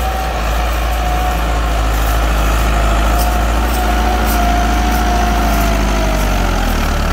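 Massey Ferguson 385 tractor's diesel engine, freshly replaced, running steadily under load while it pulls a tillage implement through the field, with a steady high whine over the low engine note that fades near the end.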